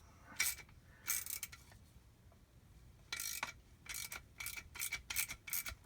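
Socket ratchet clicking as it is swung back and forth, undoing the bolts on a jet ski's impeller pump: a few clicks early, then a quick run of about four clicks a second from about three seconds in.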